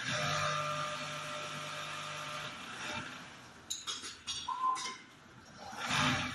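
Automatic template sewing machine running with a steady motor hum for the first half or so, then a cluster of sharp clicks and knocks, a short tone, and a loud rush of noise near the end.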